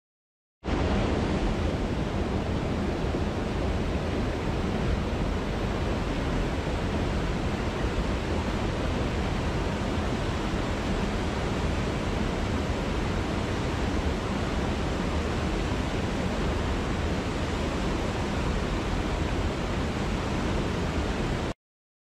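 Small waterfall and stream pouring over rocks: a steady, even rush of water that starts abruptly just after the start and cuts off near the end.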